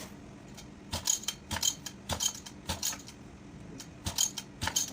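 Sharp metallic clinks with a brief ring, often in quick pairs, about two a second: small metal parts or tools knocking together.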